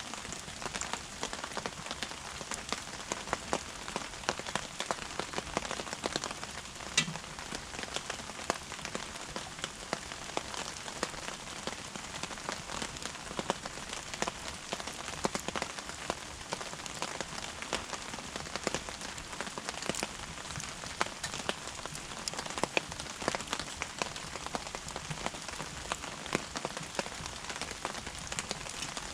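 Wood fire crackling with a steady run of irregular small snaps, and one sharper pop about seven seconds in.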